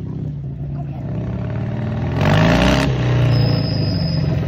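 Chopper motorcycle engine rising in pitch as the bike accelerates, with a short, loud burst of throttle about two seconds in, then running steadily.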